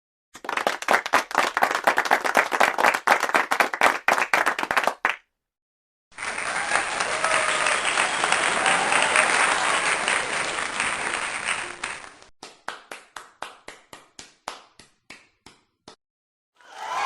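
Two applause sound effects in a row. First a group claps quickly for about five seconds and stops abruptly. After a second's pause a larger audience applauds, then thins out to a few scattered claps that die away. A new burst of crowd noise starts right at the end.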